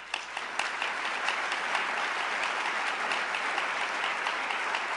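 Audience applauding: many hands clapping together in a dense, steady wash. It swells up quickly at the start and then holds even.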